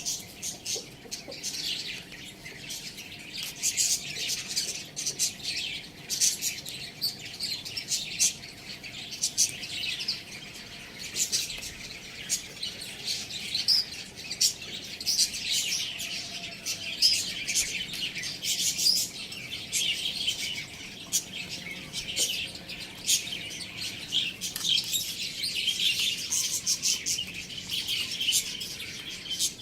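Many small birds chirping and twittering all at once in a continuous busy chatter of short, high notes.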